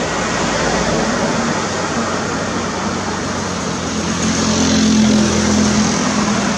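A motor vehicle's engine running close by: a steady low hum over a constant hiss, swelling louder about four seconds in and easing again near the end.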